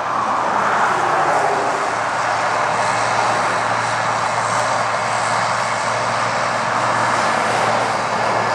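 Massey Ferguson 8570 combine harvester running steadily while harvesting corn: a continuous engine and machinery drone with a low hum beneath it, swelling slightly in the first second.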